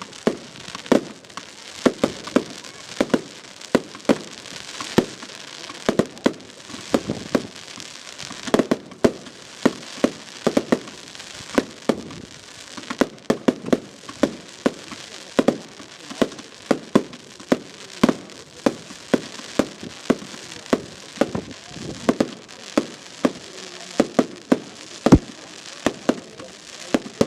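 Fireworks display: a fast, unbroken series of bangs from bursting shells, about two or three a second, over a crackling hiss.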